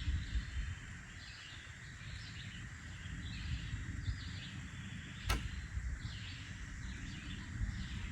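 Outdoor ambience: wind rumbling on the microphone, with faint, irregular bird chirps and one sharp click about five seconds in.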